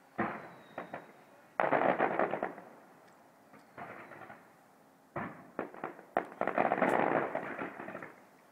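Distant fireworks display: sharp bangs and dense crackling volleys in several clusters, with a long crackling volley about two seconds in and a longer, denser one from about six seconds in.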